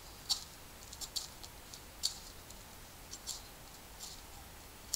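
Pathfinder Scout knife blade shaving a stick of wood in fine carving cuts: about half a dozen short, crisp scrapes at irregular intervals.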